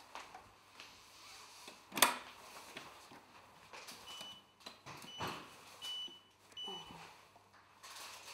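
Control panel of a benchtop centrifuge beeping as its keys are pressed to set the speed and run time: four short high beeps between about 4 and 7 seconds in, the third a little longer. A sharp click about 2 seconds in is the loudest sound, with a softer knock between the beeps.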